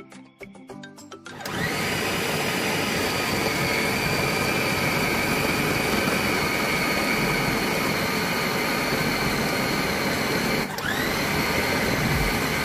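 Electric mixer motor starting up about a second and a half in, with a rising whine that settles into a steady high-pitched run as it blends minced pork with an egg. Near the end it stops for an instant and spins up again.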